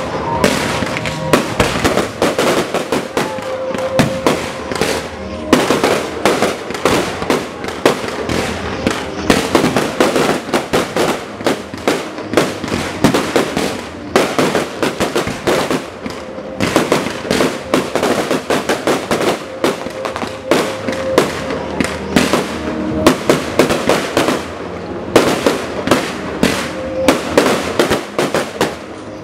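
Aerial fireworks going off in quick succession: a dense, continuous run of bangs and crackling star bursts, several a second, with a few brief lulls. Music plays underneath.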